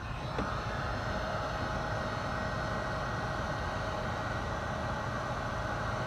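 Electric heat gun switched on a fraction of a second in and running steadily: an even fan hiss with a faint steady whine, blowing hot air to shrink heat-shrink butt connectors onto wiring.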